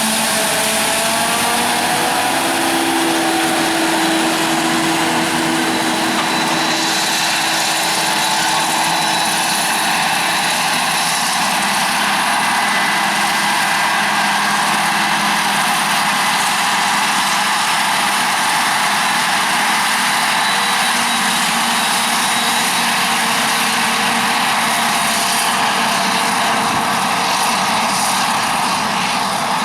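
Maize harvesting machinery running steadily: a forage harvester working with tractors alongside, a dense mechanical din with faint steady whines through it.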